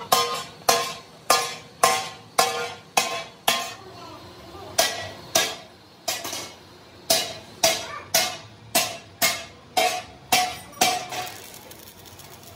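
A hammer striking steel, about two blows a second, each with a short metallic ring; the blows pause for a few seconds near the middle and stop shortly before the end.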